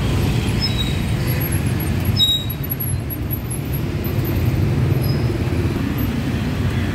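Steady low rumble of street traffic, with a few faint, brief high squeaks about two seconds in.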